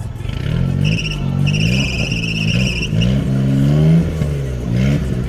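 Small off-road vehicle's engine revving up and down several times while it crawls across a steep off-camber slope. A steady high-pitched squeal runs from about a second in to about three seconds in.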